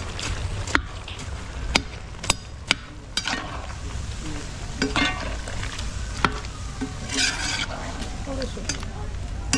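Vegetables being stirred in a pot with a cooking utensil, scraping, with several sharp knocks of the utensil against the pot and a faint sizzle underneath.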